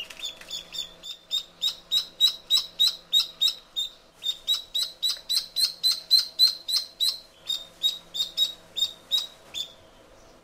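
Duckling peeping: a long run of short, high peeps, about three or four a second, with a brief pause after about seven seconds, over a faint steady hum.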